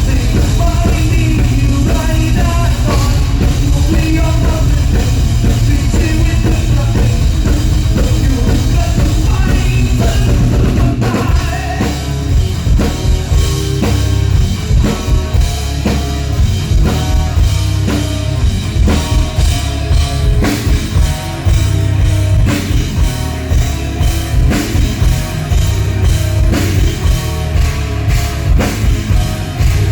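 Rock music with a drum kit, played loud; the rhythm turns more punchy about eleven seconds in.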